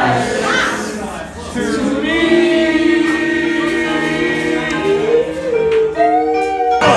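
Karaoke singing: several voices sing along together over a backing track, holding long notes through the middle, and the sound breaks off suddenly near the end.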